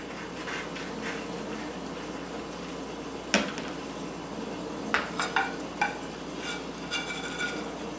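A metal pizza server clinks and scrapes against a metal pizza pan and a ceramic plate as a slice is lifted and set down. There is one sharp clink a little over three seconds in, then a run of ringing clinks from about five to seven and a half seconds in, over a steady low hum.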